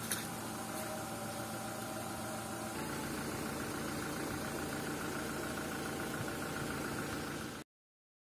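Toyota Hilux pickup's engine idling steadily. The sound cuts off abruptly near the end.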